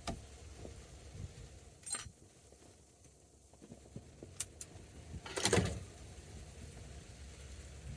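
Handling noises as the horn cover and horn ring are worked off a steering wheel: a few sharp clicks, two in quick succession about four and a half seconds in, and a short, louder scraping rustle about five and a half seconds in.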